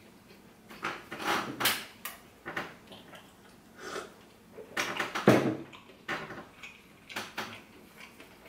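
Eating sounds: a pumpkin pasty being pulled apart and chewed, and a drink taken from a glass. The sounds come as a string of short, irregular crackles and smacks, with one louder knock about five seconds in.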